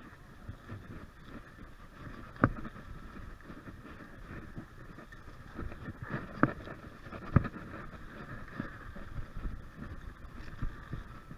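Electric mountain bike rolling down a leaf-covered dirt singletrack: a steady rumble and rattle from the tyres and frame, with three sharp knocks, one about two and a half seconds in and two more a second apart around six to seven seconds in.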